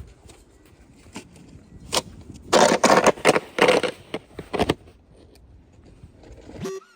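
Snow shovel scraping and crunching through snow: a few scattered knocks, then a cluster of loud scraping strokes about halfway through. The sound cuts off suddenly just before the end.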